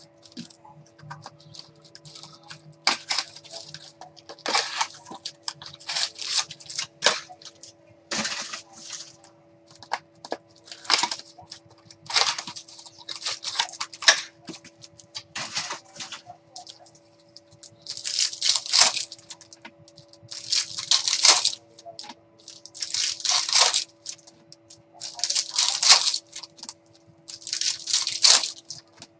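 Foil wrappers of 2019 Topps Finest trading card packs being crinkled and torn open, with cards shuffled between, in short irregular bursts of crackling. The bursts grow longer and come about every two and a half seconds in the second half.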